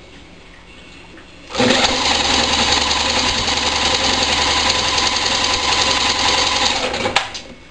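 Electric drill spinning a small lawnmower engine over by its flywheel for about five and a half seconds, starting about a second and a half in and stopping with a click. The engine is fed hydrogen (HHO) gas through its air intake and turns over without catching.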